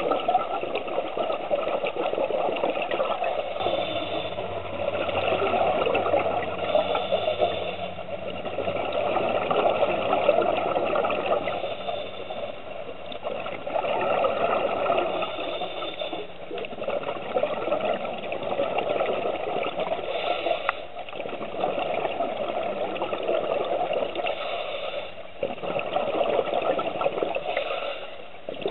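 Scuba regulator breathing heard underwater: hissing inhalations and bubbling exhalations that swell and fade in a slow cycle about every four to five seconds.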